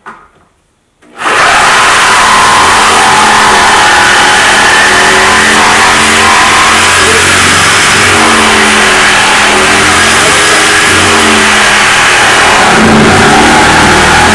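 Corded reciprocating saw starting up about a second in, then running loud and steady as its blade cuts through a kitchen countertop.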